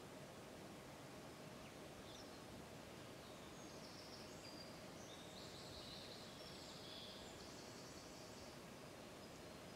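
Near-silent outdoor ambience: a steady low hiss, with faint distant songbirds singing high trills from about four to nine seconds in.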